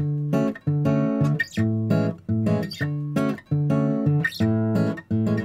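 Background music: acoustic guitar strumming chords in a regular rhythm.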